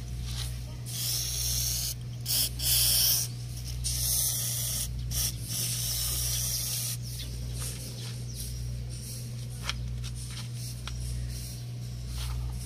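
WD-40 aerosol can spraying in several hissing bursts, from about a second in to about seven seconds in, the loudest near three seconds. It is lubricating a sticky, rusted front-grille lock latch.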